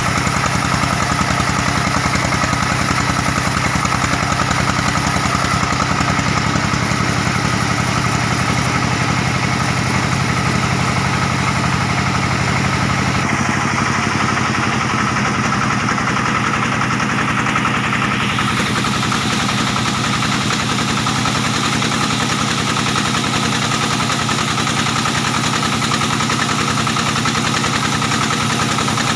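Stationary diesel engine powering a band sawmill, running steadily. Its note shifts about 13 seconds in.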